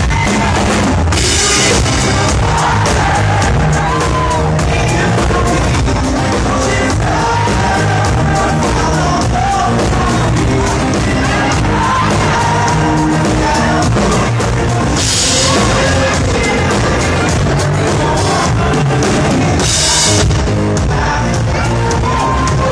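Live rock band playing with a lead singer over a drum kit, loud and continuous, with some yells and whoops from the crowd.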